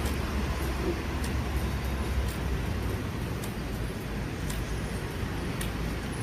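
Steady low rumble of street traffic, with light ticks about once a second.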